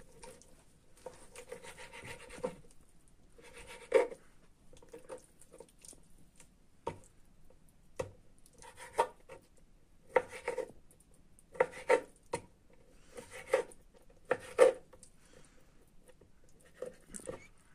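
A kitchen knife cutting raw boneless chicken breast into cubes on a wooden cutting board. About a dozen irregular knocks of the blade meeting the board, with softer slicing and scraping of the meat between them.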